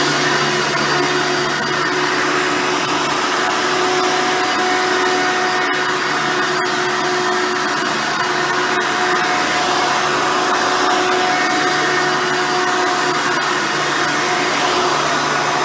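Hoover Soft & Light Supreme upright vacuum cleaner with a 7-amp motor running steadily while vacuuming: a constant motor whine over a rush of airflow.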